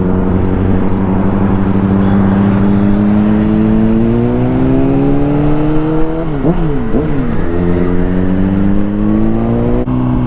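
Motorcycle engine pulling under way, its pitch rising slowly as the bike gains speed, then dropping and coming back up quickly about six seconds in as the throttle is rolled off and reopened or a gear changes. Wind and road noise run underneath.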